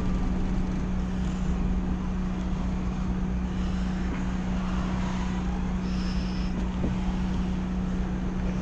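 A small passenger ferry's engine idling while moored, a steady low hum with a constant drone.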